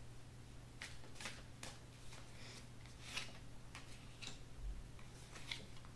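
Faint, scattered clicks and flicks of tarot cards being handled: cards slid off the deck and one laid down on a wooden table.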